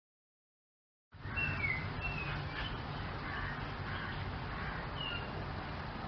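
Silence for about a second, then outdoor ambience with a few short bird chirps, clustered soon after it begins and one more near the end, over a low steady rumble.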